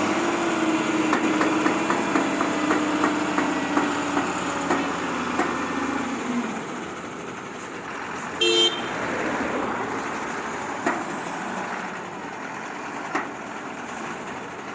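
A heavy construction vehicle's engine runs with its note rising and then holding steady for about six seconds, with a light clicking about twice a second, before dying down. A vehicle horn gives one short toot about halfway through.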